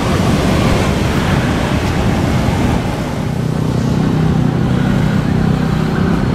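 Road traffic noise with wind on the microphone. About halfway through, a low, steady engine hum joins in.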